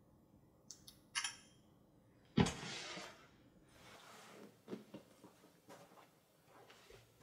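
A few short high clicks, then a loud sudden thump with a rushing noise that dies away within about a second. After that come soft, scattered footsteps on carpet.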